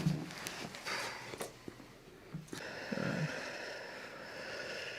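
Breathing through the nose on a treatment table, with a couple of short, soft low murmurs. A faint steady high whine joins about halfway through.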